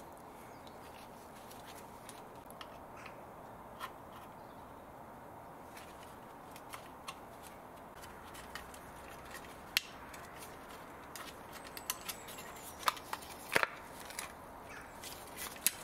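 Scattered small clicks and taps of a screwdriver and gloved hands working on a car door speaker's metal terminals and plastic frame, over a faint steady hiss. The clicks come sparsely at first and bunch together in the last few seconds.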